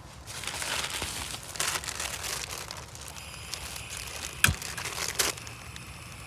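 Crinkling of plastic bags and dry leaves, then a steady hiss of gas from a portable butane canister stove being lit, with two sharp igniter clicks in the second half.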